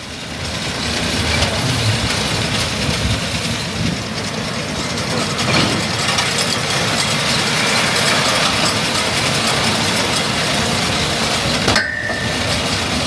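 Tractor engine and round baler running steadily, a dense mechanical clatter, with a short high beep near the end.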